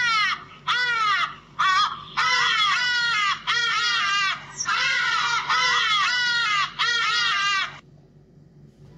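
Recorded ibis calls played through a device speaker: harsh, high calls, each rising then falling in pitch. A few short single calls come first, then from about two seconds in long runs of rapid repeated calls, which stop near the end.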